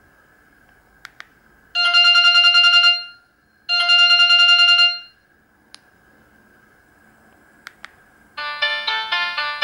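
Samsung GT-E1200Y mobile phone playing its built-in ringtones: two rings of a single buzzy, rapidly warbling tone, each a little over a second long, then a few light clicks, and a different melodic ringtone starts near the end.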